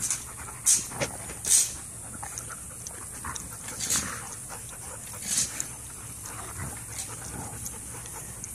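Golden retriever panting in a handful of short, breathy bursts, the loudest in the first two seconds, while she mouths her own tail.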